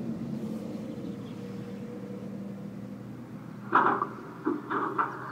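Model railway motor and gearbox humming steadily. About three and a half seconds in, a run of irregular high squeaks starts.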